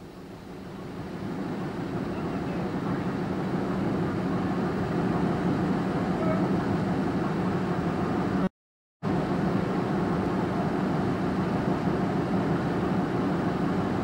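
Steady running noise of the Beloit PM 5 newsprint paper machine, its reel section winding up a paper roll. The noise fades in over the first few seconds, holds even with a low hum, and cuts out completely for about half a second just past the middle.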